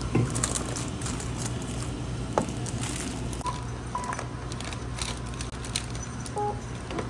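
Crinkling and handling of snack packaging and plastic bags, with scattered clicks over a steady low hum. Two short high beeps come a little after the middle.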